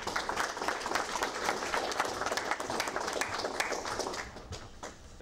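Audience applauding, dying down about four seconds in.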